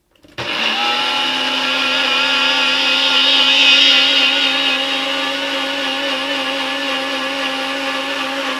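Electric blender starting up about half a second in and running at a steady pitch, puréeing a walnut vinaigrette dressing into a thick, creamy sauce.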